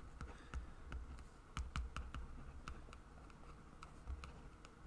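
Faint, irregular clicks and taps of typing on a computer keyboard, with a few soft low thumps.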